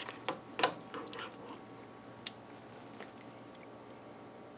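Soft scrapes and squishy taps from a spatula lifting tender cooked sweet potato and apple onto a ceramic plate, several in the first second and a half and one more light tap a little past two seconds.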